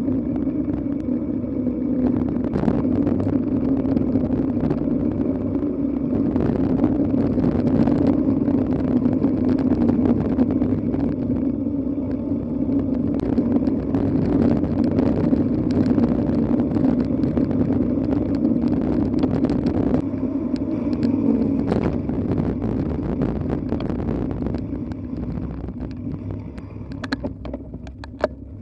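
Mountain bike rolling fast along a forest road, heard from the bike: a steady hum of the tyres on the tarmac mixed with rushing wind and small rattles over the bumps. The hum fades about three-quarters of the way through as the surface turns to dirt and grass, and a few sharper clicks and knocks come near the end.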